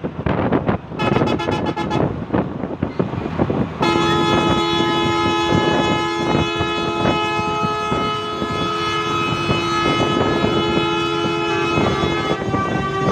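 A vehicle horn gives a short blast about a second in, then one long, steady held blast from about four seconds in until near the end. Underneath is the rumble and wind noise of a moving bus.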